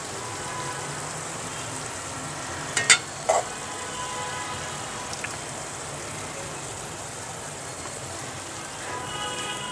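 Food sizzling steadily in a pan on the stove. Two sharp clinks of a metal spatula against cookware come about three seconds in.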